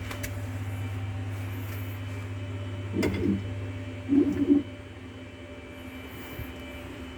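Home-made CNC machine's stepper motors whirring in two short jog moves, about three and four seconds in, over a steady machine hum.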